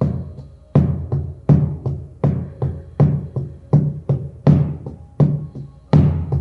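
Large shamanic frame drum beaten with a padded beater in a steady rhythm: a deep strike about every three quarters of a second with a lighter stroke between each, each ringing out briefly.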